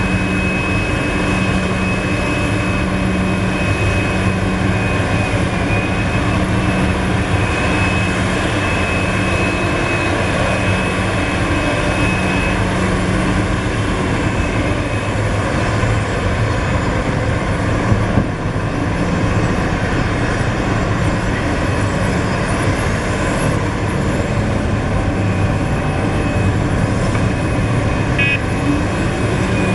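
Liebherr R974 crawler excavator's diesel engine running under working load as it digs and swings, with a high steady whine through the first half and a single brief knock about two-thirds of the way in.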